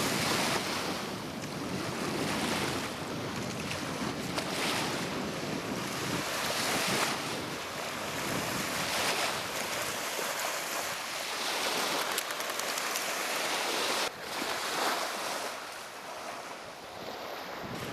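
Lake Michigan waves washing onto a sandy beach, surging every two to three seconds, with wind rumbling on the camcorder's microphone.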